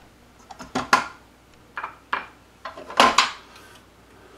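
Silicone spatula scraping down the paddle and sides of a stainless-steel stand-mixer bowl, with the mixer stopped: a handful of short separate scrapes and taps, the loudest about three seconds in.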